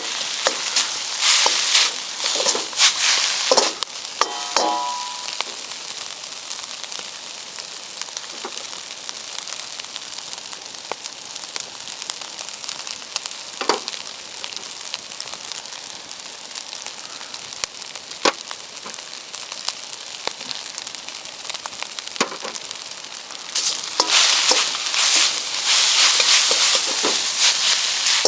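Food sizzling in a Yamada Kogyosho iron wok over a campfire while being stir-fried. Bursts of stirring and scraping come in the first few seconds and again in the last few seconds, with a steadier sizzle and scattered clicks in between.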